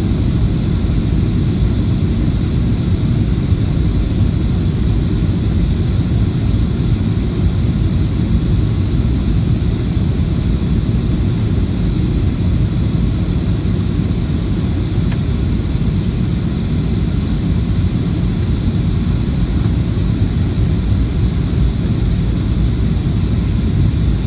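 Steady cabin noise inside a Boeing 737-800 in flight, heard from a window seat over the wing: a constant low rumble from the CFM56-7B engines and the air rushing past the fuselage.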